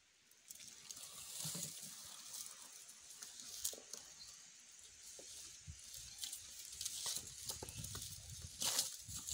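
A Komodo dragon swallowing a carcass whole, the pair shifting and scraping over dry leaf litter and stones. The sound is crackly, with many small clicks and a louder burst near the end.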